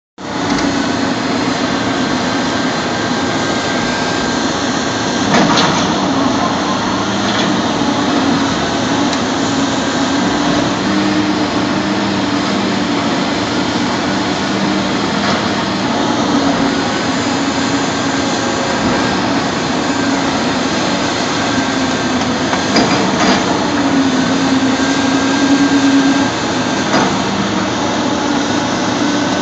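Caterpillar 330 hydraulic excavator running, its diesel engine note rising and falling as it works the arm and bucket, with a few sharp knocks.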